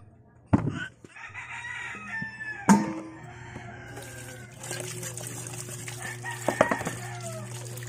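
A rooster crows twice, with a few sharp knocks in between. From about halfway, water from an outdoor tap runs and splashes into a basin as cassava is scraped under it.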